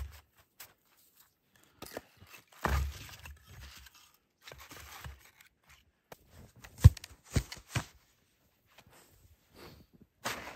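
Footsteps crunching in deep, dry snow, then split firewood set down piece by piece on a log, with three sharp wooden knocks within about a second as the logs strike each other. Right at the end a snow shovel starts scraping into the snow.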